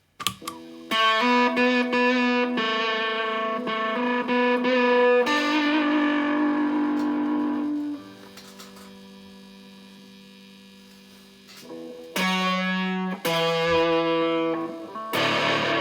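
Electric guitar played through a silicon fuzz pedal, a prototype Astrotone circuit built with 2N3566 transistors: fuzzed single notes and held chords. About eight seconds in, a held note is left to fade for a few seconds. New notes follow near twelve seconds, and a thick strummed chord near the end.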